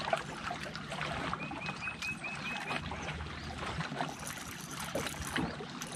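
Water lapping against a bass boat's hull, with small clicks from handling the rod and the fish being unhooked. About a second and a half in, a quick series of about seven short high chirps.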